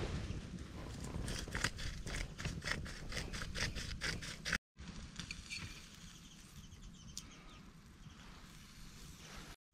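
Disposable rock salt and black pepper grinder being twisted over meat: a rapid run of small grinding clicks, about five a second, for several seconds.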